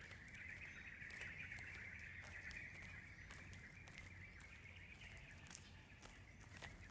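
Faint, steady high-pitched chorus of small animals, with a few scattered light taps.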